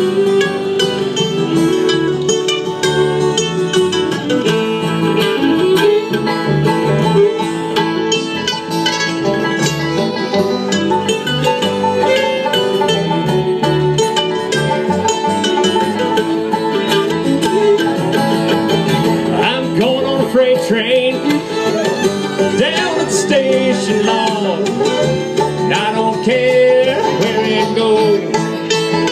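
Bluegrass band playing live: fiddle, upright bass, acoustic guitar, mandolin and five-string banjo together at a steady tempo.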